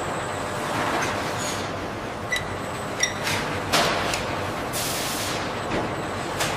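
Pulp slurry drawn from a sampling valve on a stainless pulp line into a glass beaker: a steady rushing hiss with two light clinks a little past two and three seconds in, then several short, louder surges of gushing.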